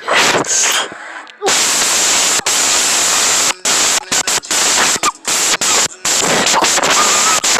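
Very loud, harsh static-like noise filling almost every pitch. It starts in earnest about a second and a half in and cuts out and back in abruptly many times, faster toward the end.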